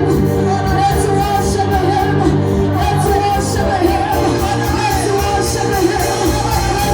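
Gospel praise and worship music: singing voices over held bass notes and a steady drum beat.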